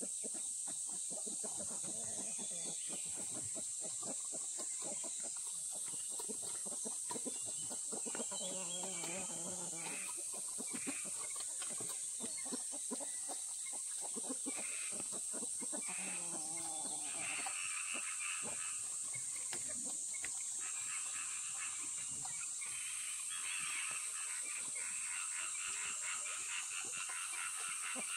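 Chickens clucking over a steady high-pitched drone. Past the middle a fast, even pulsing sound joins in and runs on.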